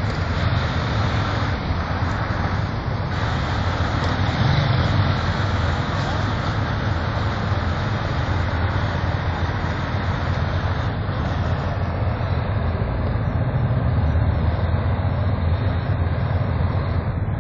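Steady low rumble of street traffic and idling vehicle engines.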